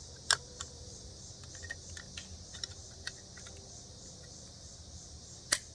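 Scattered small clicks and ticks from a Swiss Army knife's can-opener blade working the lid of a tin can, with two sharp louder clicks, one just after the start and one near the end. Crickets chirp steadily in the background.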